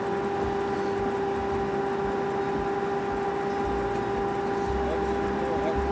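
A steady machine hum holding two constant pitches, with no change in level.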